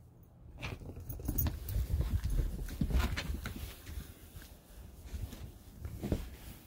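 Footsteps of a person and a Great Dane crunching through deep, fresh snow in an uneven series of steps, busiest in the middle.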